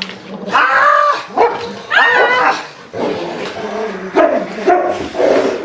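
Giant Schnauzer barking repeatedly at a decoy, in short calls that rise and fall in pitch.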